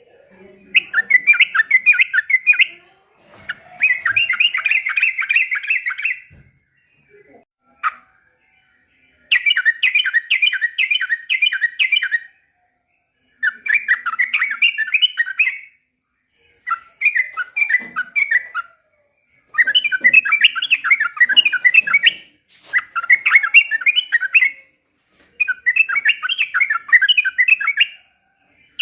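A yellow-vented bulbul (trucukan) singing in repeated phrases of fast, chattering notes. Each phrase lasts about two to three seconds, with short pauses between.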